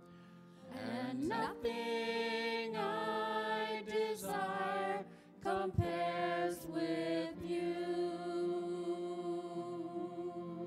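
Worship band playing a slow song: a sustained melody with vibrato over a low held keyboard chord, with a short break in the line partway through.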